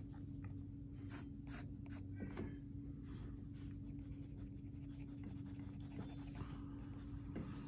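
Pencil scratching on drawing paper as a portrait is shaded: a run of short, quick strokes in the first couple of seconds, then softer, steadier shading. Faint, over a steady low hum.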